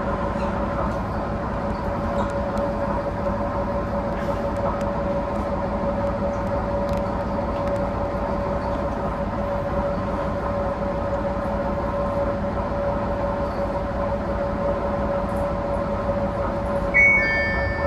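Tenryū Hamanako Railroad diesel railcar running, heard from on board: steady engine and running noise with a constant whine. Near the end, a short run of clear musical tones begins.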